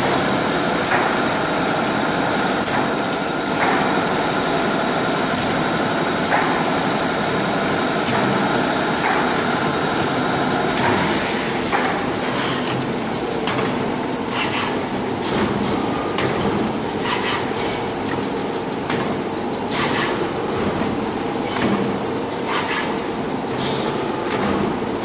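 Toilet-roll and kitchen-towel wrapping machine running: a steady mechanical noise with frequent irregular clicks and knocks from its conveyors and wrapping mechanism.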